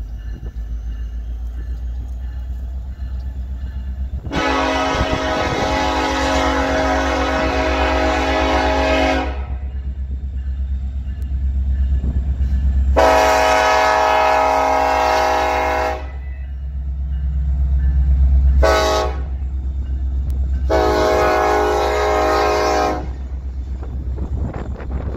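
BNSF SD70ACe locomotive horn sounding the grade-crossing signal: long, long, short, long. Beneath it runs the low rumble of the locomotives' EMD two-stroke diesel engines, growing louder as the coal train approaches.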